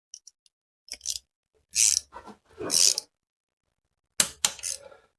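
Torque wrench set to 25 newton metres working an engine mount bolt: three short bursts of ratcheting, then a quick run of sharp metallic clicks a little after four seconds in.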